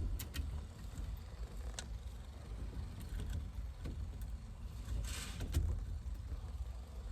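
Light clicks and a brief scrape of hand work on a car's steering column, over a steady low rumble.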